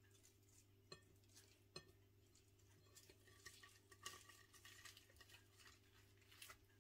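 Near silence: faint handling sounds of fingers tucking fillings into softened rice paper and rolling it. There are a couple of light clicks about one and two seconds in and soft, crackly rustling in the second half, over a low steady hum.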